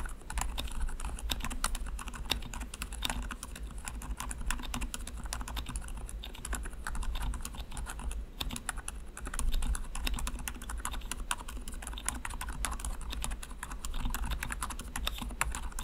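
Continuous fast typing on a custom DK68 mechanical keyboard fitted with Outemu Creamy Yellow silent switches, lubed with Krytox and dampened with foam and tape inside the case: a quick, irregular patter of soft keystrokes.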